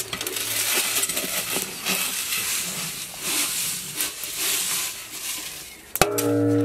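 Dry sand poured from a metal pot into a large metal cooking vessel, a steady hissing pour. About six seconds in it ends with a sharp click and a short steady low hum.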